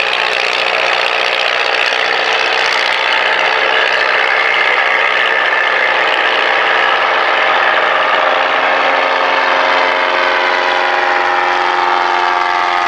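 Piston engines of replica Edwardian aircraft, an Avro Triplane and a Bristol Boxkite, running in flight: a loud, steady drone with a many-toned engine note.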